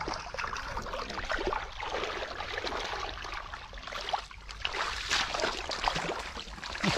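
Shallow muddy water splashing and sloshing irregularly as hands and knees churn through it, groping in the mud for fish.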